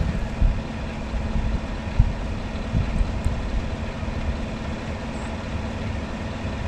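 Vehicle engine idling close by, a steady hum under uneven low rumbling, with a few dull thumps.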